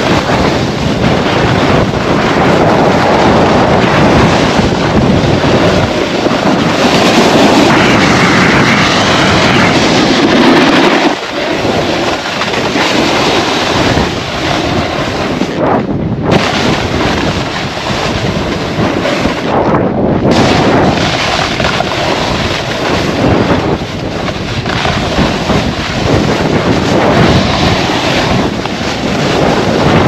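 Wind buffeting the microphone and a snowboard sliding and scraping over groomed snow while riding downhill: a loud, continuous rushing that dips briefly about eleven seconds in.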